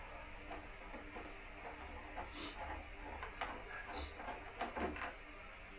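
Faint scattered clicks and light metallic ticking from a bolt being undone and handled with a Torx tool.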